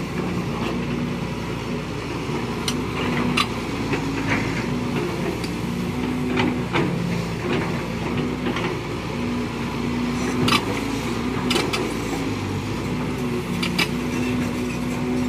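Caterpillar 320C hydraulic excavators at work: diesel engines running steadily, their pitch stepping up and down as the hydraulics take load. Now and then there is a short sharp knock, about six in all.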